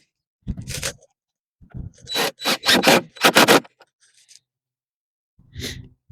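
A run of short, noisy scraping strokes: one about half a second in, about five in quick succession around two to three and a half seconds in, and one more near the end.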